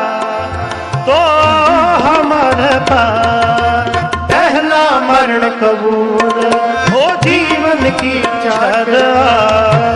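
Kirtan accompaniment of harmonium and tabla playing between sung lines: steady held harmonium tones over a running tabla beat, with gliding low drum notes. The music drops in level briefly just before a second in, then comes back fuller.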